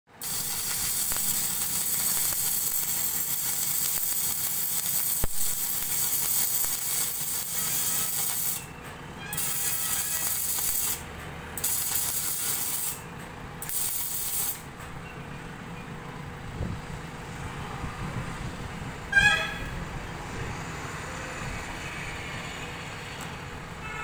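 Arc welding on the steel front bucket of a JCB backhoe loader: the arc gives a steady crackling hiss for about eight and a half seconds, then three shorter welds, and stops about fifteen seconds in. A short horn toot sounds near twenty seconds.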